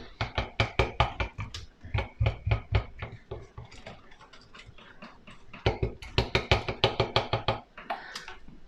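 A rapid run of sharp knocks or taps, about four to five a second, in two bursts: one in the first three seconds and another from about five and a half to seven and a half seconds in.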